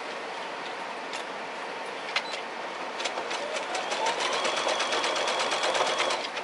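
Domestic sewing machine stitching a fabric leader scrap. After a few separate clicks, it starts about halfway in: the motor whine rises to speed under rapid, even needle ticks, then stops just before the end.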